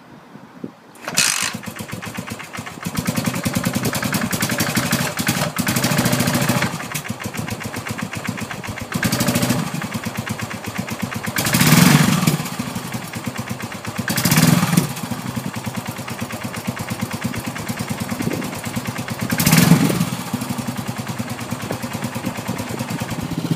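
Yamaha SR400's single-cylinder four-stroke engine, kick-started, catches about a second in and runs through a freshly fitted Capton aftermarket muffler. It is revved in short throttle blips about five times between stretches of idle.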